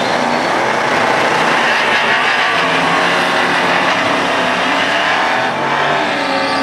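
Dodge Challenger and Dodge Magnum doing side-by-side burnouts, engines revving hard while the rear tyres spin in smoke.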